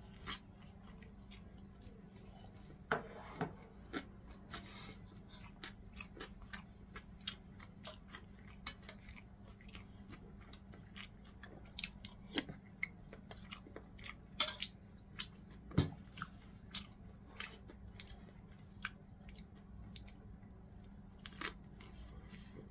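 Close-miked mukbang eating sounds: a person chewing gimbap and fish cake, with many short, irregular wet clicks and crunches from the mouth. A steady low hum runs underneath.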